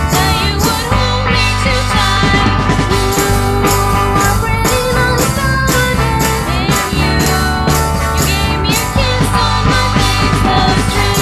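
Indie pop song: a band playing with a steady drum beat.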